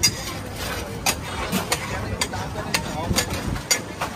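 Metal spatulas and ladles clinking and tapping against a large iron tawa in irregular sharp clicks, over a steady low rumble and background voices.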